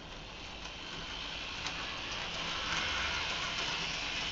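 Rivarossi model tram running around its track: a steady electric-motor whir and wheel rattle on the rails, growing louder as it comes close.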